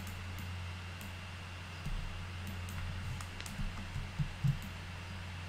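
Scattered faint clicks of a computer mouse and keyboard, a key press and mouse-wheel ticks, over a steady low hum.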